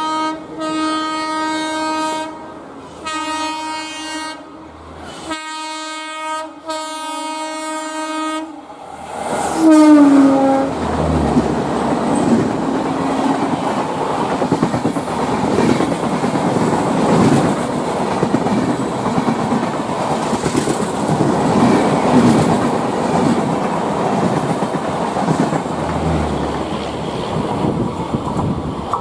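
WAP4 electric locomotive horn sounding a series of long blasts as the express approaches at speed, its pitch dropping as the locomotive passes about ten seconds in. The coaches then rush by with a steady rumble and rattle of wheels on the track.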